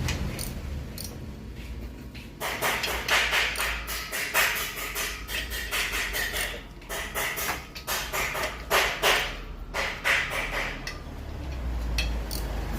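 Irregular clicks and light knocks of hand tools and metal and plastic parts being handled, in quick uneven runs for most of the stretch, over a low steady hum.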